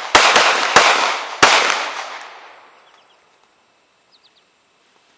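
A rapid string of handgun shots, about four in the first second and a half, fired during a timed draw-from-concealment pistol drill. Each shot is followed by a long echo that dies away over the next couple of seconds.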